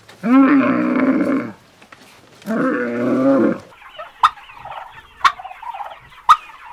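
A camel bellowing twice, each call about a second long. From about four seconds in, helmeted guineafowl take over, chattering, with sharp, loud calls roughly once a second.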